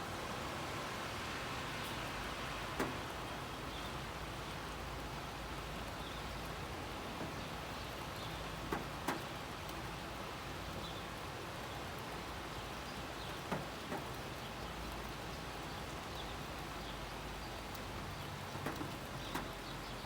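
Steady rain hissing, with single raindrops striking a nearby surface as sharp ticks every few seconds.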